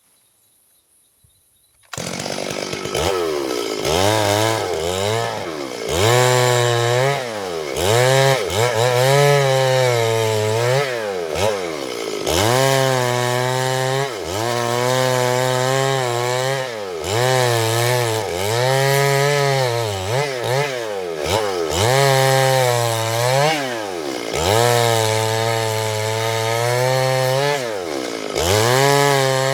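Chainsaw engine running at high revs, its pitch rising and falling again and again every second or two. It comes in abruptly about two seconds in.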